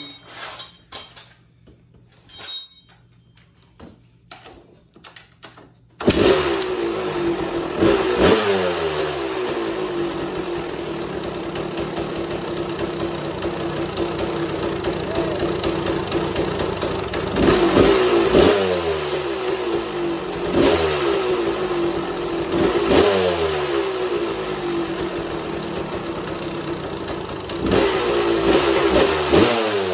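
1990 Kawasaki KX250's single-cylinder two-stroke engine firing up about six seconds in, on its first start after a frame-off restoration, then running with repeated throttle blips whose pitch jumps up and sweeps back down to idle. Before it catches there are a few knocks and clicks.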